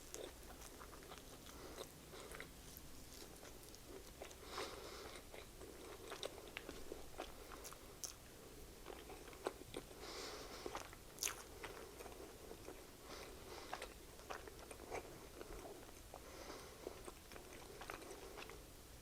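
Close-up chewing and biting of a chicken sandwich, with scattered wet mouth clicks and soft crunches.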